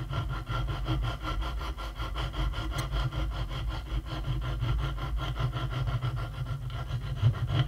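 Hand files scraping back and forth over the edges of small mild-steel brackets clamped in a vise, in steady repeated strokes.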